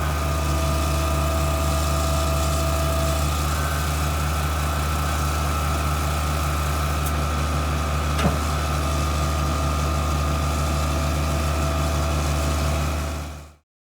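Engine of a Putzmeister 47-metre truck-mounted concrete pump running steadily, with a single sharp click about eight seconds in; the sound fades out quickly just before the end.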